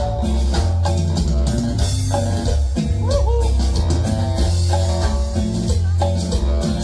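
Live tropical dance band playing: electric guitar, bass and keyboard over a steady beat from drum kit and congas.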